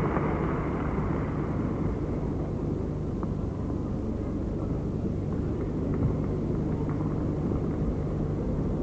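Arena crowd ambience: a steady low murmur of a large audience in an indoor hall.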